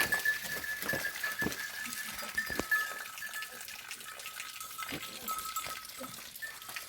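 Sheep and goats moving about the animal pen, with a steady high ringing throughout and scattered knocks.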